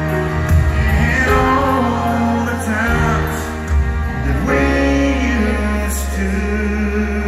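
Live country ballad: piano and band playing under a male singer's vocal, recorded from within the audience.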